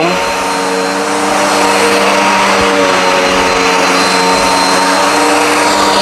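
Dirt Devil Endura Max upright vacuum cleaner running on carpet: a steady motor tone over rushing airflow as it sucks debris into its dust bin.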